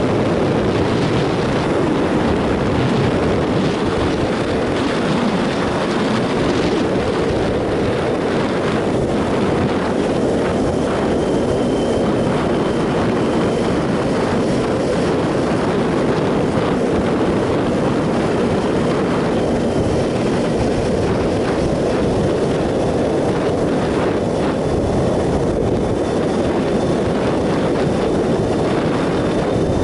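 2007 Triumph Sprint ST 1050 at road speed: steady wind rush over the microphone with the 1050 cc three-cylinder engine running beneath it, holding an even pace.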